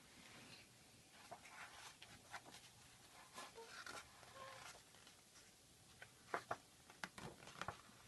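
Faint paper rustling with scattered light clicks and taps from a picture book's pages being handled, with a few sharper clicks near the end.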